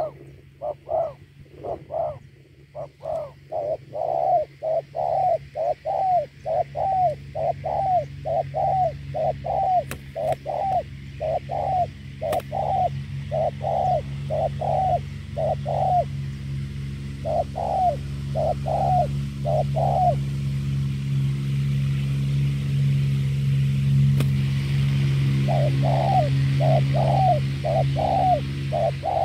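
Spotted doves cooing in long runs of short repeated notes, about two a second, pausing twice before starting up again near the end. A steady low hum runs underneath and grows louder in the second half.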